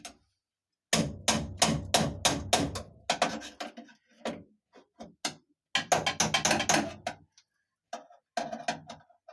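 A rapid run of sharp knocks and clatter from a tool working at a car door's window crank while trying to pop it off, with further bursts of knocking about six seconds in and near the end.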